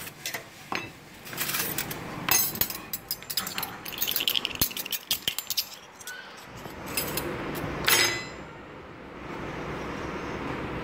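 Stainless steel forks and spoons clinking against each other as a utensil is pulled out of a plastic cutlery holder, a quick run of sharp clinks, followed by handling noise and a single sharp knock near the end.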